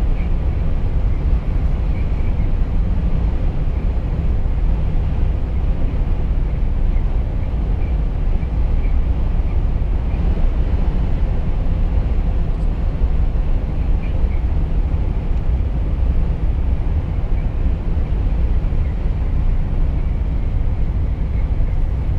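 Volvo FH truck cruising at motorway speed, heard from inside the cab: a steady low rumble of engine, tyre and road noise.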